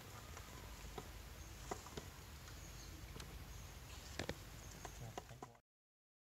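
Scattered crackles and rustles of dry leaf litter under a young macaque's steps over a steady outdoor hiss, cutting off suddenly about five and a half seconds in.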